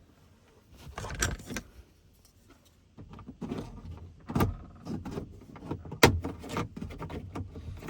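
Clicks, knocks and rattling from hand work on a pickup truck's door and its handle hardware. There is a short clatter about a second in and a quiet spell, then irregular knocks with a single sharp loud click about six seconds in.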